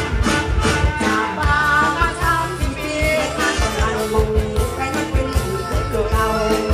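Live mor lam band: a woman sings a Thai Isan song into a microphone over amplified drums and band instruments, with a steady beat.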